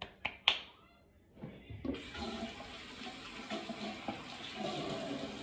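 A couple of sharp knocks, then a bathroom sink tap comes on about two seconds in and water runs steadily into the basin for hand-washing.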